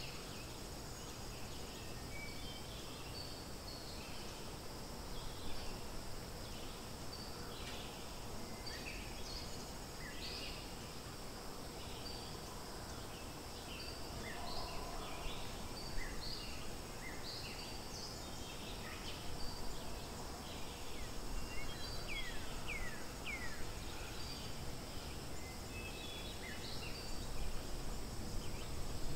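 Natural outdoor ambience: many short, high bird-like chirps scattered throughout over a steady high insect drone, with a few quick falling whistled calls about three-quarters of the way through.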